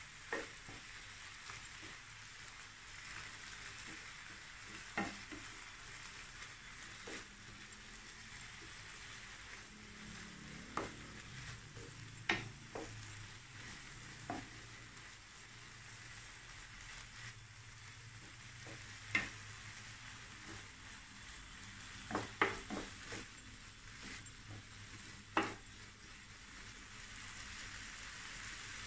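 Wonton filling of prawns, chicken, shredded cabbage and carrot sizzling in a nonstick pan as a wooden spatula stirs and scrapes it. Sharp knocks of the spatula against the pan come every few seconds, and several come close together about two thirds of the way in.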